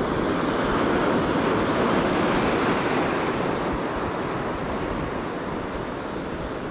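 Sea surf breaking and washing over rocks, a steady rushing that swells about a second in and slowly eases, with some wind buffeting the microphone.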